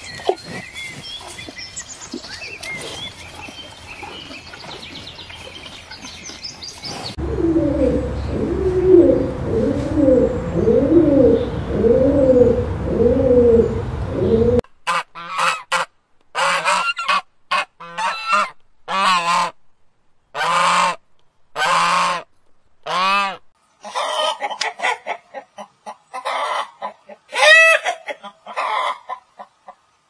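Domestic geese honking: a run of loud, separate calls from about halfway through. Before them comes a different run of lower calls, repeated about once a second.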